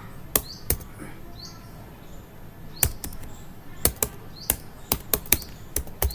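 Computer keyboard keystrokes at an uneven pace: two sharp clicks near the start, a pause of about two seconds, then a run of about eight.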